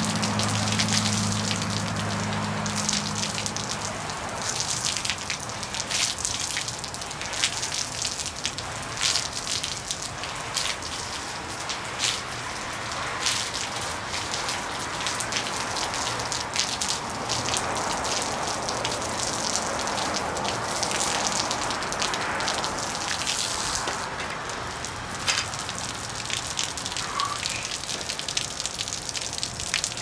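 Water from a brush-head extension pole spraying and splashing onto a vinyl awning, pattering and dripping down, with an uneven crackle of drops. A low hum fades out in the first few seconds.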